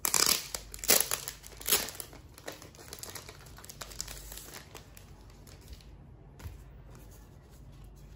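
Clear plastic sleeve crinkling as it is opened and handled. There are loud crackles in the first two seconds, then softer rustling that dies away about five seconds in.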